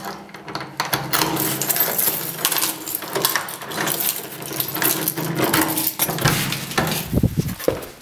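A bunch of metal keys jingling and clinking while a key is put into a door's lock cylinder and turned, an irregular run of small metallic clicks and rattles. Toward the end come a few duller knocks.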